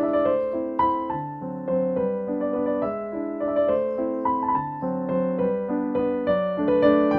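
Piano music: a steady run of notes over held lower notes.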